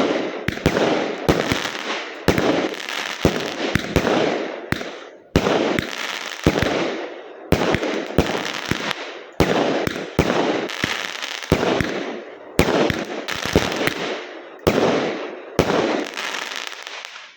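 Fireworks going off in a rapid series of sharp bangs, about one a second, each followed by a fading crackling tail, then stopping suddenly.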